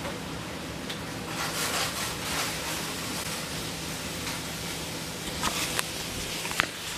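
A saucepan boiling over on a smooth-top electric stove: a steady hiss of bubbling and of spilled liquid sizzling on the hot cooktop. A few sharp clicks and knocks come near the end as the camera is handled.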